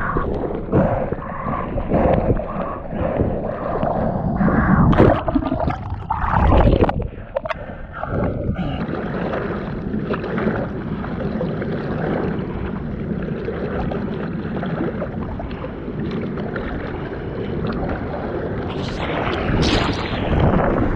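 Water splashing and rushing past a board-mounted action camera as a surfboard pushes through whitewash, with uneven loud splashes in the first several seconds. A steadier wash of water follows while paddling, then a louder rush of water near the end.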